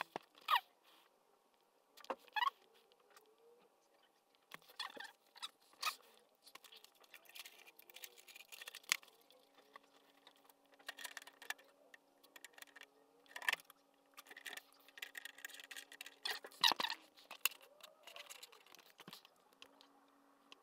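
Faint, irregular clicks and small rustles, with a few sharper clicks standing out.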